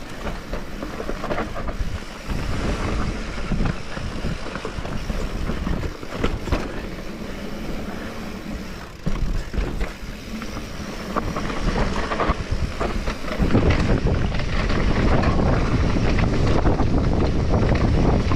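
Mountain bike being ridden down a rough trail: tyres over dirt and stones, with the bike clattering in many short knocks and wind buffeting the microphone. The wind rumble grows heavier about three-quarters of the way through.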